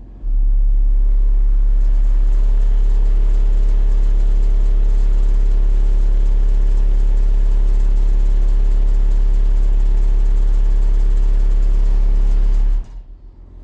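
Four 15-inch Sundown Zv5 subwoofers driven hard by Sundown SALT 8 amplifiers, playing a steady deep bass test tone. The tone drops out for a moment at the start as the track resets, then holds until it cuts off near the end. The amps are pushed to the edge of clipping: the tone is getting some distortion but is not yet technically clipping, and the voice coils give off a burnt-glue smell.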